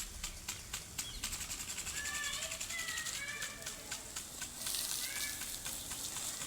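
Garden water fountain splashing steadily, a constant spattering hiss of falling water. Birds chirp briefly over it, a few short calls about two to three seconds in and again near five seconds.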